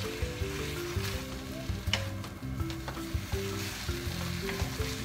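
Vegetables and noodles sizzling in a hot nonstick wok as they are tossed and stirred with a wooden spatula and a silicone spatula, with a sharp clink of a spatula on the pan about two seconds in. Background music with a slow melody plays underneath.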